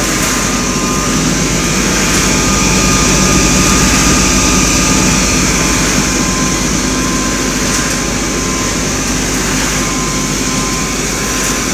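Industrial popcorn machine and its perforated drum sieve running. The noise is a steady machine hum with a thin whine and hiss over it.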